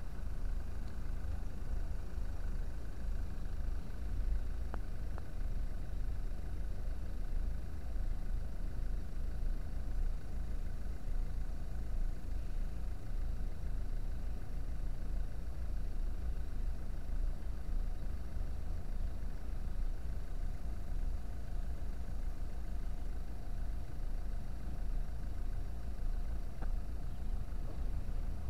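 Vehicle engines idling, a steady low rumble with no change; a faint steady hum comes in about two-thirds of the way through.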